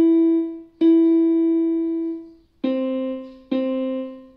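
Yamaha portable electronic keyboard, piano voice, playing single notes one at a time, each fading after it is struck: E twice, the second held longer, then C twice about a second apart. This is the simple finger exercise E-E-E, C-C-C, played with the thumb on C and the middle finger on E.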